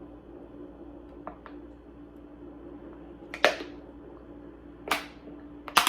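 Three sharp, short knocks or clatters about a second and a half apart, preceded by a couple of faint ticks, over a steady low hum. It sounds like objects being handled and set down.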